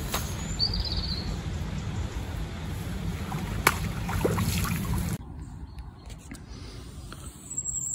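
Landing net dipped into lake water with light splashing and a couple of sharp knocks, under a steady low rumble of wind on the microphone. The rumble cuts off abruptly about five seconds in, leaving a quieter stretch, with a short bird chirp near the start and again near the end.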